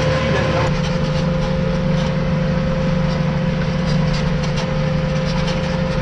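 Tractor engine running steadily while ploughing, heard from inside the cab: an even low hum with a thin steady whine above it and a few light rattles.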